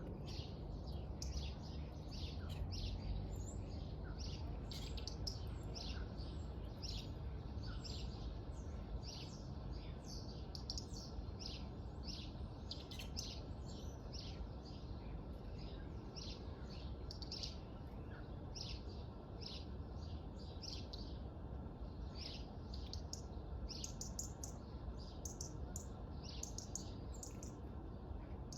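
Small birds chirping, a dense run of short, high chirps several times a second with no let-up, over a steady low rumble.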